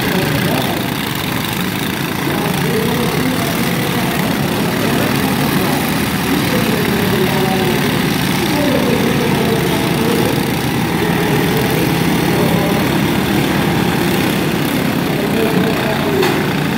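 Several small riding-lawn-mower engines on demolition-derby mowers running together, their pitch wavering up and down.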